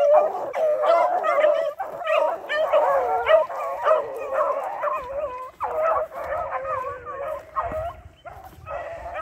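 A pack of hounds baying together in overlapping, wavering howls as they run, in full cry on a track. The voices grow fainter after about halfway as the pack moves off, and a low wind rumble comes in.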